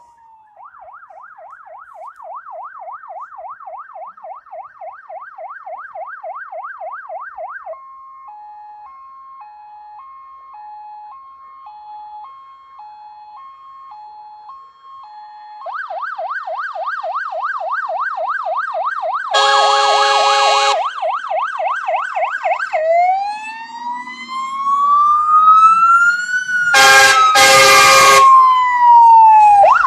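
Fire engine sirens growing louder as the trucks approach on an emergency run: a fast yelp, then a two-tone hi-lo for several seconds, then the fast yelp again, and near the end a slow wail that rises and falls. Loud horn blasts cut in twice, about two-thirds of the way through and again near the end.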